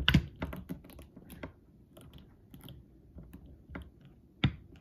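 Hard plastic clicking and tapping as a translucent atomic-breath effect piece is worked into the mouth of a NECA Godzilla 2001 action figure. There is a burst of sharp clicks at the start, scattered light ticks after it, and one louder knock near the end.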